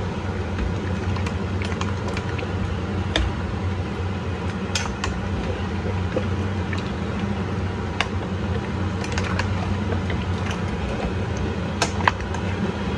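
Metal spoon stirring meat in a stainless steel pot, with scattered clinks and scrapes against the pot, over a steady low hum.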